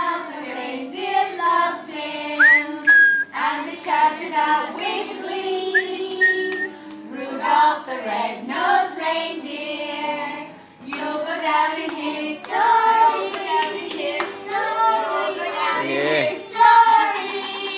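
A group of voices singing together, children among them, with hand clapping. Two short whistled notes come in, about two and a half and six seconds in.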